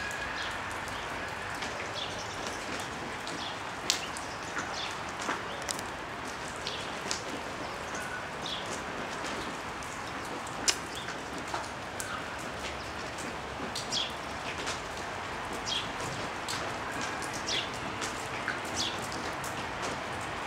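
Steady rain falling, with a crowd of sparrows chirping over it in many short, scattered chirps.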